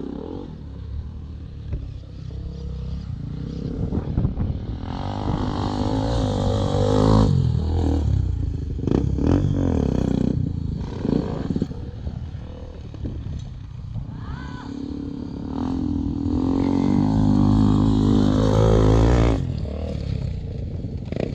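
Enduro motorcycle engines revving and riding past, swelling up and dropping back twice: loudest about a third of the way in and again near the end.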